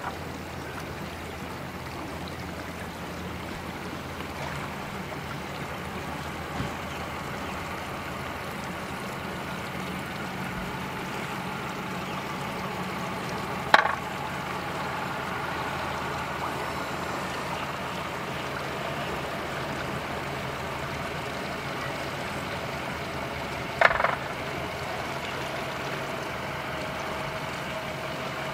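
Yamaha 115 outboard motor idling steadily as the boat is maneuvered at low speed. Two sharp knocks, about halfway through and again near the end.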